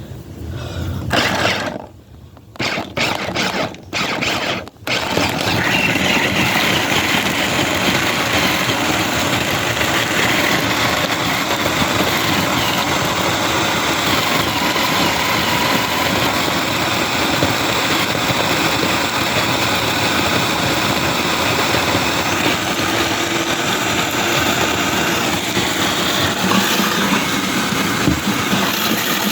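Electric grinder grinding soft, long-cooked bones. The motor starts in a few short bursts, then runs steadily under load.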